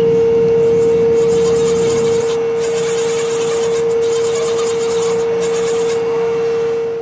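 Mori Seiki Frontier M1 CNC vertical mill running through its machining cycle: a steady, unchanging mid-pitched tone over a rough, even noise, fading out at the very end.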